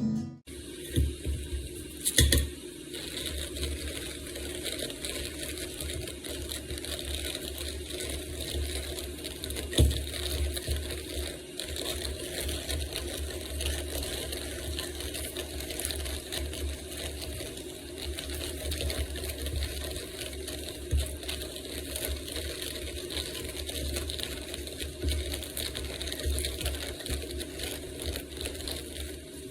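Bodum Bistro electric blade coffee grinder running steadily, a low motor hum with a whirring blade and scattered clicks and rattles.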